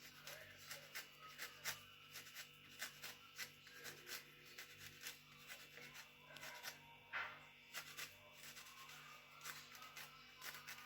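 Faint, irregular scraping and small clicks of an orange being peeled by hand.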